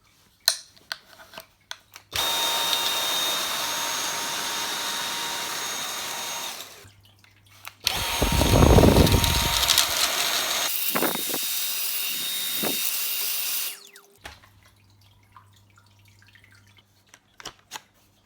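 Dyson V8 cordless stick vacuum motor running in two bursts, about five and six seconds long, each with a steady high-pitched whine and cutting off sharply; the second starts with a heavy low rumble. A few small clicks come before, between and after the bursts.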